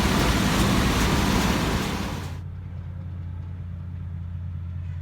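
Tractor pulling a John Deere 567 round baler, running with a loud, even noise that cuts off sharply about two and a half seconds in, leaving a steady low engine hum.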